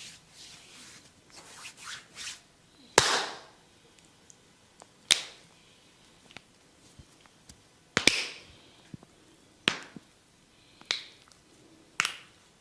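Sharp slaps and snaps of a barber's hands during a head massage: six loud strokes at uneven gaps of one to three seconds, with fainter ticks and taps between them.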